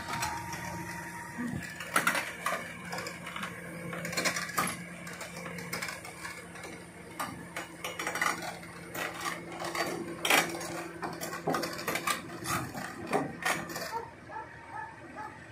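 Kobelco crawler excavator's engine running with a steady hum while its steel tracks and undercarriage clank and knock irregularly as it is manoeuvred at the rear of a lowbed trailer. The hum drops away near the end.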